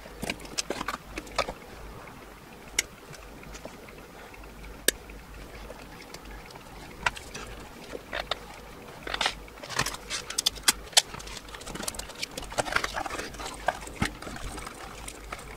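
Clicks, taps and light knocks of a circuit board and small parts being handled and turned over on a silicone work mat. The clicks are scattered and come thickest about two thirds of the way through, over a steady low hiss.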